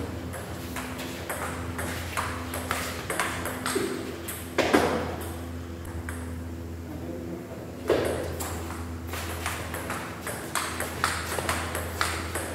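Table tennis ball knocking back and forth between bats and table in quick, irregular hits, with two louder, ringing hits about four and a half and eight seconds in. A steady low hum runs underneath.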